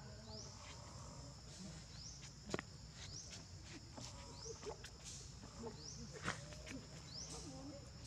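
Outdoor insect drone, steady and high, with a short rising chirp repeating every second or two. A few sharp clicks break through, the loudest about two and a half seconds in.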